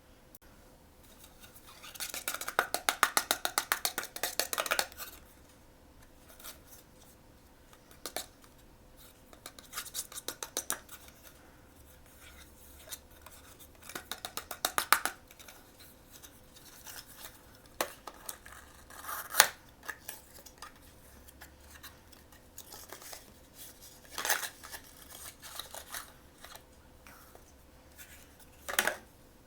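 Blind-box packaging being handled and opened by hand: a run of rapid, evenly spaced clicks or rips lasting about three seconds near the start, then scattered crinkles and taps, with one sharp click about two-thirds of the way through.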